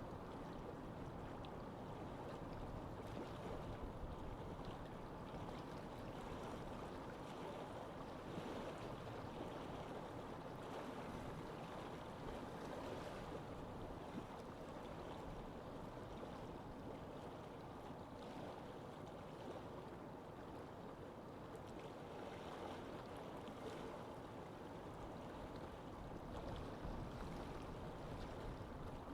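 Lake ambience: a steady rush of wind and moving water, with faint small splashes of water lapping now and then.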